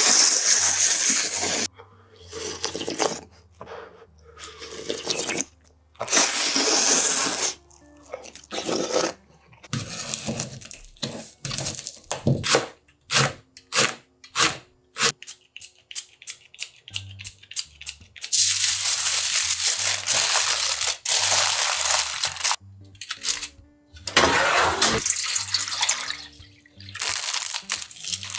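Kitchen sounds over quiet background music: noodles being slurped, then a chef's knife chopping green onion on a plastic cutting board in a run of quick, even strokes, several a second. Later come long stretches of rushing, hissing noise.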